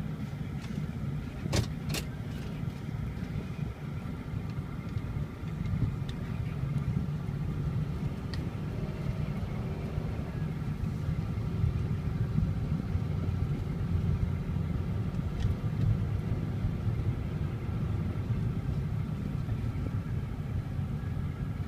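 Pickup truck engine and road noise heard from inside the cab, a steady low rumble that grows louder about five seconds in as the truck drives on. Two sharp clicks come near the start.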